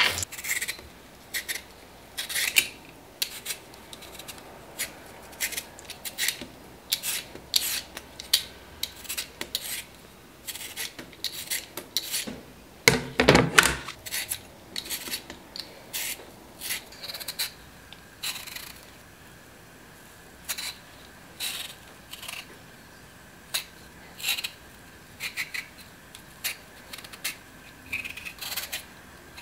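Hand vegetable peeler scraping the skin off a potato in short, irregular strokes, with one louder knock about halfway through.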